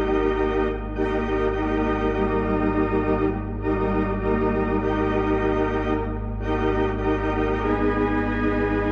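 Organ accompaniment playing sustained chords over a steady held bass note, changing chord three times.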